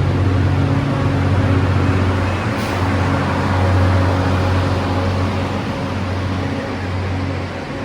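A train running through the station: a steady low drone with a hum near 100 Hz, swelling twice and easing off near the end.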